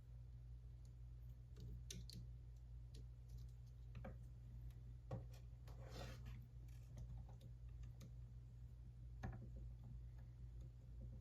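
LEGO bricks clicking and snapping together as pieces are handled and fitted, a few faint scattered clicks and a brief rustle of plastic parts over a steady low hum.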